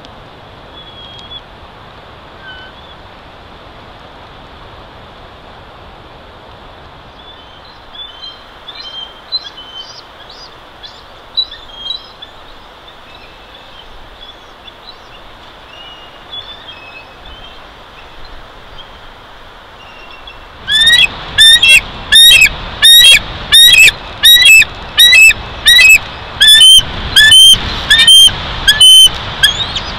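Bald eagle on its nest calling: a loud, rapid series of high chirping calls, about one and a half a second, starting about two-thirds of the way in. Before that, a steady hiss of wind with faint scattered bird chirps.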